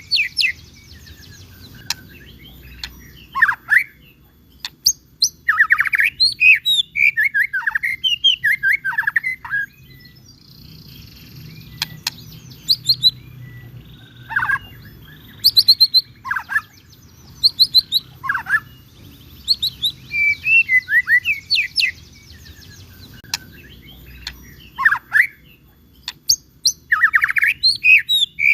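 White-rumped shama (murai batu) singing vigorously: phrases of quick, varied whistles and chirps, broken by short pauses of a second or two.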